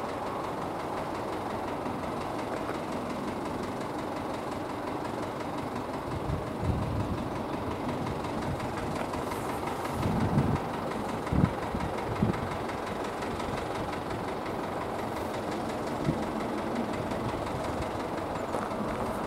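AŽD 97 level-crossing warning bell (electronic bell) sounding steadily, with a few short low thumps about six seconds and ten to twelve seconds in.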